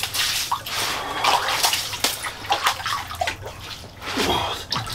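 Lake trout splashing and thrashing in the water of an ice-fishing hole as it is hauled out, then slapping on the wet ice, in a run of irregular splashes and slaps.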